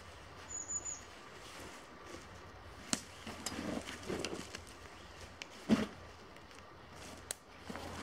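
Quiet forest ambience: one short, high bird chirp about half a second in, then soft rustling and a few sharp snaps or clicks, one louder than the rest.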